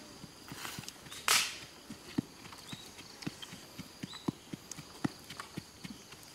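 Irregular dull knocks, two or three a second, with one brief loud rushing noise about a second in.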